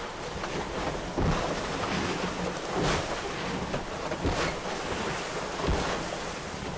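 Strong wind buffeting the microphone while waves and spray break over the deck of a Mini 6.50 racing sailboat in heavy weather, with several heavier splashes standing out.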